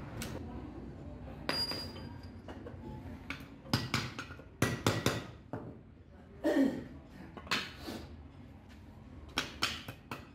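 Irregular metallic clinks and knocks of steel rivets and a brake lining being handled and set against a truck brake shoe.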